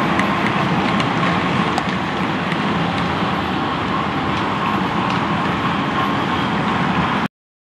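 Model freight train rolling along the track: a steady rumble of wheels on rail with a light hum and faint scattered clicks. It cuts off abruptly just before the end.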